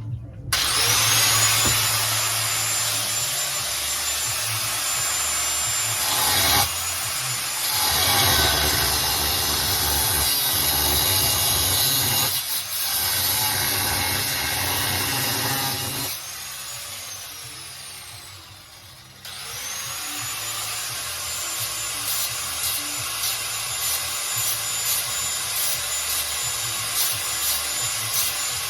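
Grinder spinning up to a high whine and cutting metal with a harsh grinding hiss. About halfway through it is switched off and winds down, then starts again a few seconds later and goes back to cutting.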